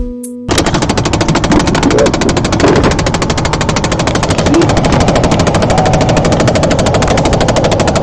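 2012 Chevy Impala's passenger-side blend door actuator behind the glove box clicking rapidly and steadily, about a dozen knocks a second, starting about half a second in. This is the common knocking of a failing blend door actuator.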